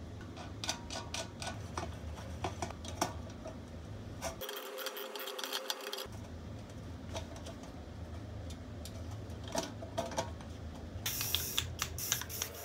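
Light metallic clicks and taps of a small screw and thin stainless sheet-metal parts being handled and fitted together by gloved hands, over a steady low hum.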